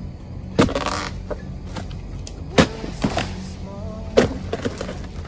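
Steel dodos chisel on a pole striking into oil palm frond bases three times, about two seconds apart; each chop is sharp and followed by a brief ringing. A steady low hum runs underneath.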